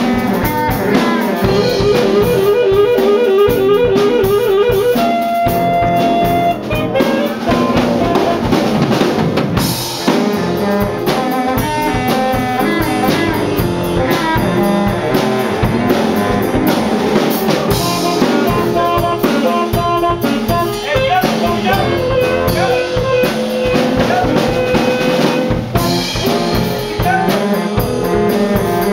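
Live funk jam by a small horn section of saxophones, trombone and trumpet over a drum kit. A short riff of quickly repeated notes gives way to a held horn note about five seconds in.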